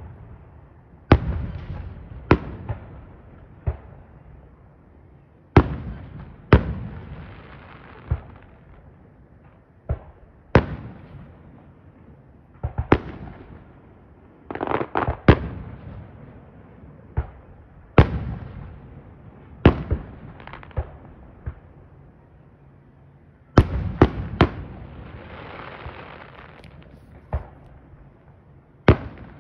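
Aerial fireworks bursting overhead: sharp bangs every second or two, with a quick run of several bangs about halfway through and another cluster later on. Some bursts are followed by a few seconds of crackling hiss.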